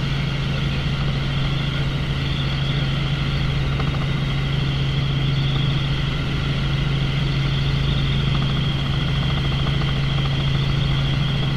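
Helicopter in flight: the engine and rotor make a steady, loud low drone with a fainter high whine above it.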